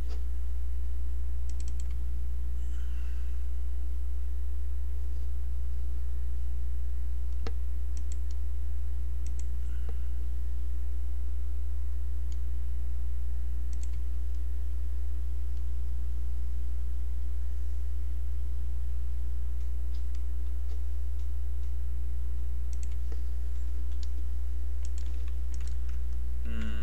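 Scattered clicks of a computer mouse, more frequent near the end, over a steady low electrical hum.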